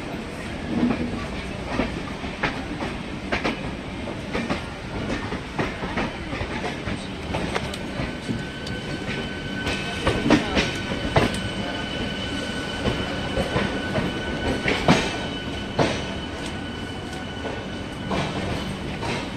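MEMU electric train coaches running past at close range, with wheels clacking irregularly over rail joints and points over a steady rumble. From about 7 seconds in until near the end, a thin, steady high whine runs under it.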